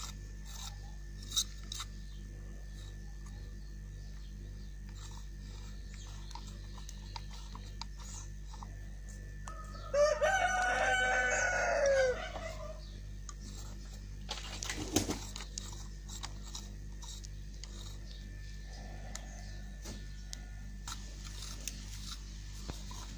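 A rooster crowing once in the middle, one call of about two and a half seconds. Behind it is a steady low hum, with a few small clicks and a short knock a few seconds after the crow.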